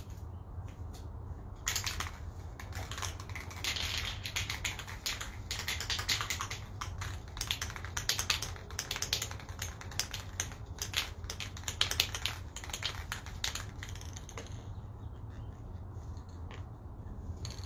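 Aerosol spray paint can being shaken to mix the paint, its mixing ball rattling rapidly inside. The rattling starts about two seconds in and stops a few seconds before the end, over a steady low hum.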